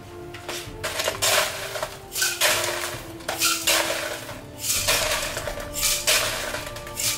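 Ice being scooped out of a plastic tub, a rattling crunch about once a second.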